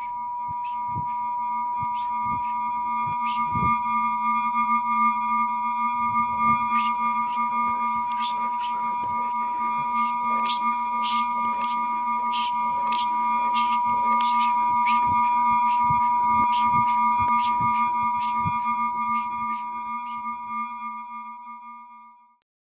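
Electronic credits soundtrack: a chord of held pure tones with scattered irregular clicks and ticks over it, the clicks thickening in the middle, and the whole fading out near the end.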